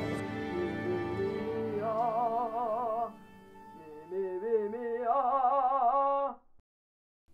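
Operatic singing with wide vibrato over sustained orchestral music. The sound drops low for a moment about three seconds in, then the singing returns and cuts off suddenly about a second before the end.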